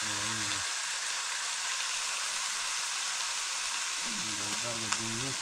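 Chicken pieces frying in a wok, a steady sizzling hiss.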